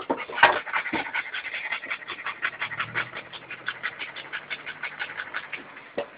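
A dog panting fast and steadily close to the microphone, about eight pants a second, with a few louder huffs near the start.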